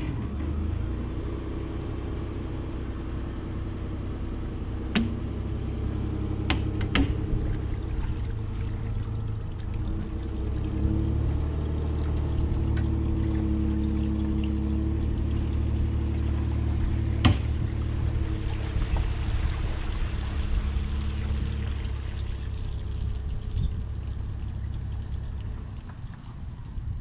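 Pickup truck engine running steadily under load as it hauls a boat on its trailer out of the water, with water pouring and trickling off the hull and trailer. A few sharp knocks stand out, the loudest about 17 seconds in.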